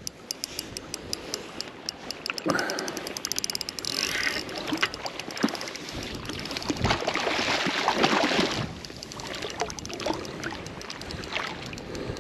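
Lake water sloshing and trickling, with a fast run of small clicks over the first few seconds.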